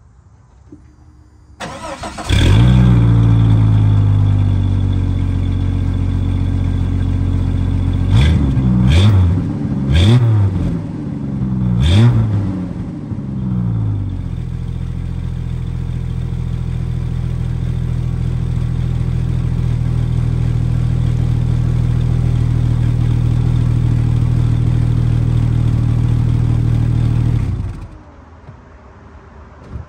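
1998 Jeep Cherokee's 4.0-litre inline-six started and run through a Flowmaster Super 44 muffler and high-flow catalytic converter: it catches and settles to a steady idle, is revved four quick times, idles again, and is switched off near the end.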